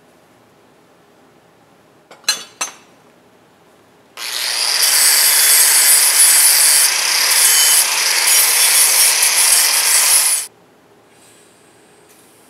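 Steel bracket piece being ground against a spinning grinding wheel: a loud, steady grinding hiss with a high whistle, lasting about six seconds and cutting off sharply. Two metal clinks come a couple of seconds before it.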